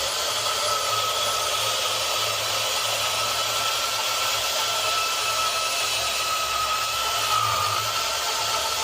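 Power saw cutting through a pipe: a steady motor whine over a continuous cutting noise, the pitch dipping briefly about seven seconds in.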